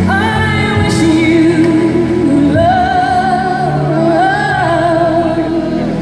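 Music with a singer holding long, wavering notes over a steady accompaniment: the soundtrack of a dancing-fountain show played over loudspeakers.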